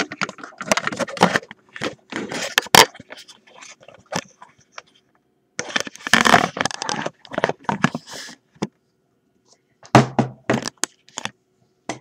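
Handling noise from a camera being moved about: rapid clicks, knocks and rubbing crackles against its microphone, in three bursts with short pauses, the last a little after ten seconds in.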